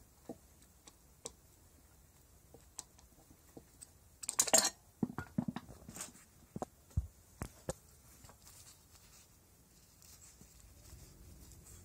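Light clicks and taps of a screwdriver and parts being handled in a scooter's engine bay, with one short, louder rustling scrape about four seconds in. The engine is not running.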